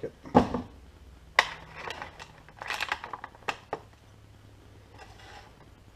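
Stiff clear plastic packaging crackling and clicking as it is handled, with a run of sharp clicks in the first four seconds, then fainter rustling.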